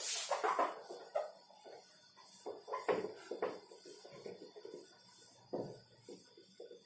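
Cloth duster rubbing across a whiteboard in a series of irregular wiping strokes, the strongest near the start and about three seconds in.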